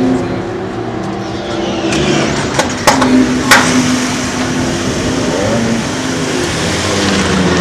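Toyota GT86 race car's flat-four boxer engine running steadily in the pit box, with two sharp knocks about three seconds in, then rising briefly in pitch as the car pulls away from the stop.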